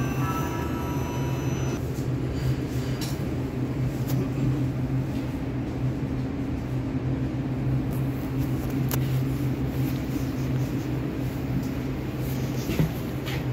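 Steady low hum of a Warsaw Metro train standing at an underground platform with its doors open. A fainter high whine dies away about two seconds in, and a few faint clicks sound.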